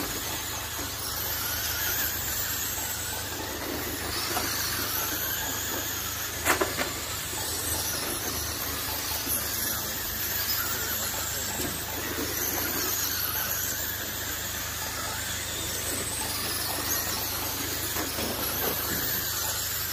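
Several Traxxas Slash electric short-course RC trucks racing, their motors whining in overlapping rising and falling glides as they speed up and pass. A single sharp knock comes about six and a half seconds in.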